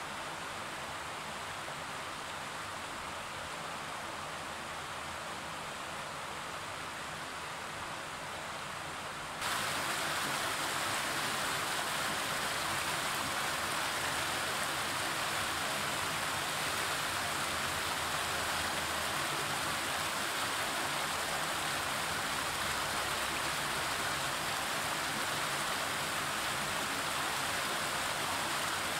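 A shallow rocky river rushing steadily over stones, a continuous water noise that becomes louder and brighter about nine seconds in.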